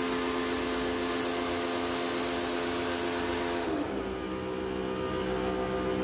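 Electric pressure washer running, its motor and pump humming steadily under the hiss of the water jet spraying an air-conditioner condenser coil. A little over halfway through the spray stops: the hiss falls away and the motor's hum drops to a lower pitch and keeps running.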